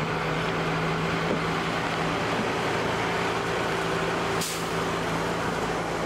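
Mack Superliner road train's diesel engine running steadily as the truck drives past, a steady low engine note over road noise. A brief sharp click cuts through about four and a half seconds in.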